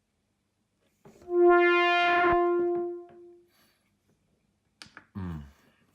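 A single synthesizer note from a DSI Tempest: one steady pitched tone rich in even harmonics, held about two seconds and then fading out. A few clicks and a short low sound follow near the end.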